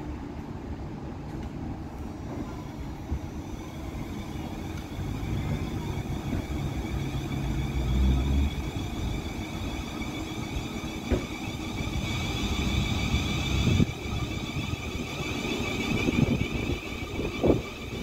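South Western Railway Class 444 Desiro electric multiple unit pulling away, its traction motor whine climbing steadily in pitch as it gathers speed and passes, over a low rumble. A few sharp knocks come in the second half.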